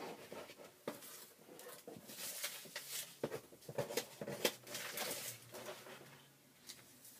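Paper wrapping and cardboard packing rustling and crinkling as it is handled and pulled out of a box, in irregular crackles that die down near the end.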